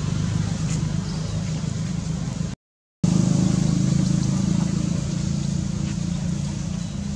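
A steady low drone, of the kind a running motor makes, that cuts out completely for about half a second a little before the middle and then resumes.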